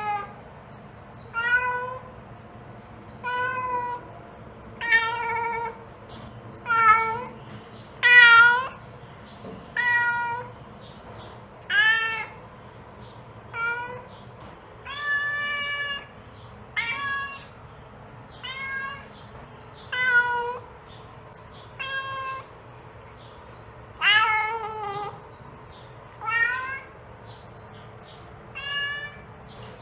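Mother cat meowing repeatedly to call her kittens, about sixteen short calls, one every second and a half to two seconds, with one longer, drawn-out call about halfway through.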